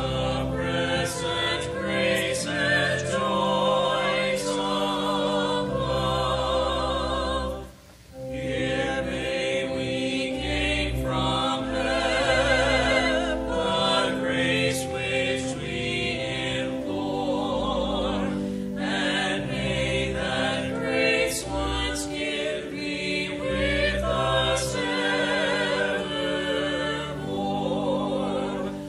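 Church choir singing a hymn with organ accompaniment, held notes with vibrato over a steady bass, with a short break between lines about eight seconds in and again at the very end.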